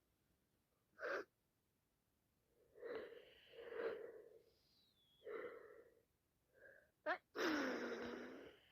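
A woman with sinusitis sneezing: a short breath about a second in, then several gasping in-breaths building up to a loud, drawn-out sneeze about seven seconds in.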